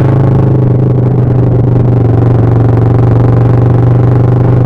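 Kawasaki ER-6n parallel-twin engine running through a straight pipe with no muffler, a loud steady drone holding a constant pitch while cruising.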